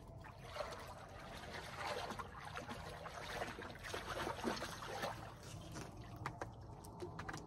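Water splashing and trickling as a small channel catfish is reeled to the bank and thrashes at the surface, with a run of short sharp splashes.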